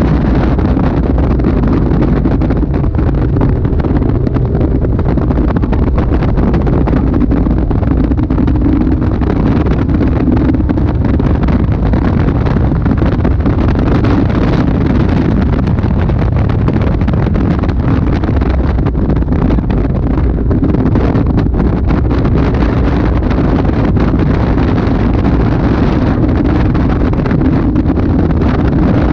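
Caterham Super 7 engine running hard around a track, heard from the open cockpit. The engine note rises and falls as it is driven, under steady wind buffeting on the microphone.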